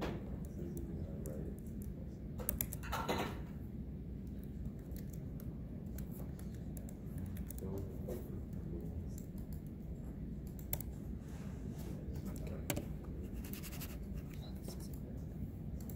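Classroom room noise: a steady low hum with scattered light clicks of keyboard typing, and two brief rustles, about three seconds in and near the end.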